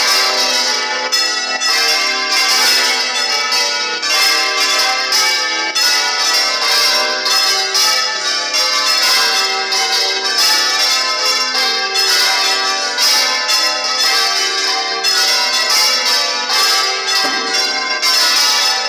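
Several church bells swinging full circle on counterweighted headstocks (Spanish volteo), heard from inside the belfry. Their strikes overlap in a loud, continuous clanging peal.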